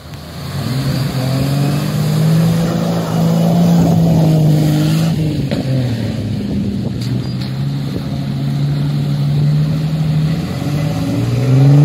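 Off-road 4x4's engine running under load and revving as it wades through shallow water, the engine note rising and falling several times, with water sloshing around the wheels.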